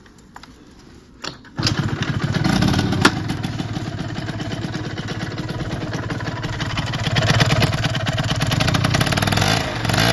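2008 Yamaha Aerox 50cc two-stroke scooter engine, fitted with a Tecnigas Next R aftermarket exhaust, starting up about a second and a half in after a few clicks. It then runs warm with a rough, buzzy note, getting a little louder for a moment around seven seconds in.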